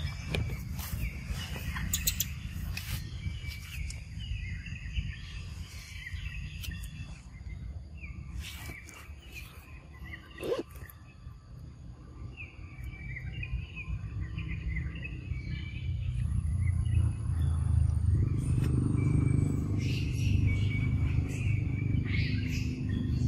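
Short, high chirping calls repeating again and again, with scattered clicks, over a low rumble that gets louder in the last few seconds.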